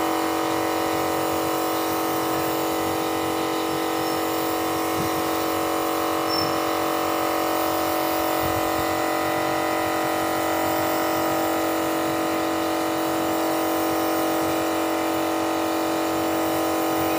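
Paint spray gun and its motor-driven air supply running steadily while spraying matte finish onto a wooden door: an even motor hum with the hiss of the spray.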